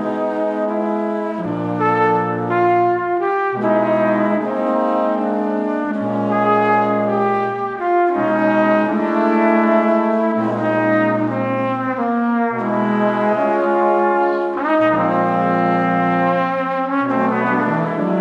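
Brass quartet of two trumpets and two trombones playing sustained chords, with the low trombone notes changing every second or two.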